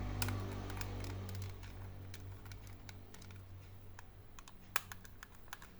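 Scattered light clicks and taps of small plastic and metal laptop parts being handled and fitted, with one sharper click near the end. A low hum fades away over the first second or two.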